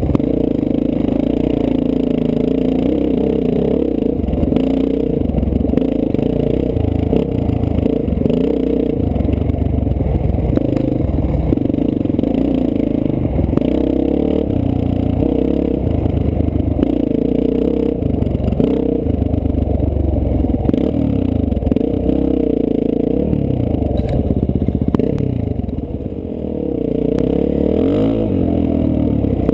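Dirt bike engine running as it rides a dirt trail, its pitch rising and falling with the throttle, heard from a camera mounted on the bike itself. About 25 seconds in the engine eases off briefly, then picks up again.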